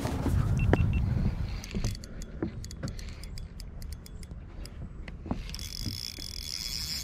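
Spinning reel being cranked against a hooked fish: a run of irregular clicks and ticks from the reel and rod handling, over a low rumble near the start.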